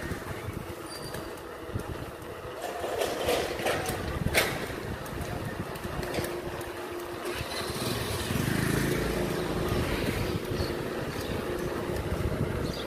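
Engine and road noise of a vehicle driving along, with wind on the microphone; a sharp click about four seconds in, and a steady hum joining the noise from about six seconds.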